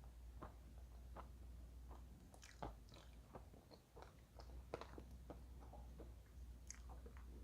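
A person chewing chalk: faint, irregular crunches and crackles of the chalk breaking between the teeth, over a faint low hum.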